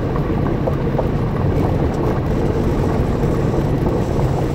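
Steady low rumble of a vehicle driving on a gravel road, heard from inside the cabin: engine and tyre noise with a few faint ticks of gravel under the tyres.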